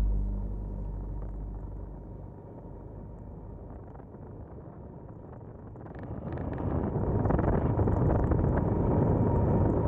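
Background music fades out over the first two seconds, leaving a motorcycle riding along a dirt track: engine and wind noise, quiet at first and getting louder about six seconds in.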